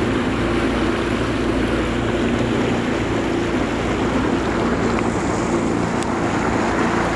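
A motorboat's outboard motor running steadily underway, with water rushing past the hull and wind noise on the microphone.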